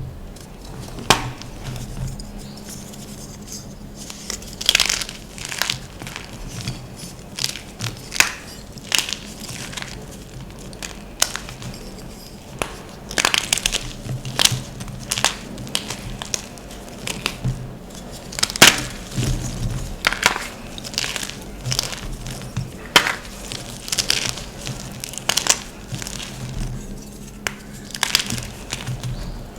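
Blocks of gym chalk being crushed and crumbled, an irregular run of sharp crunches and crackles, a few each second.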